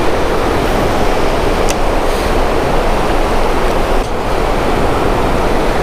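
River water rushing steadily over shallow rapids, a constant loud hiss with a single faint click about a second and a half in.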